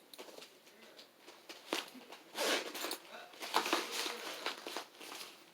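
Cloth and plastic scraping and rustling in irregular bursts as a doll's small jacket is worked off by hand.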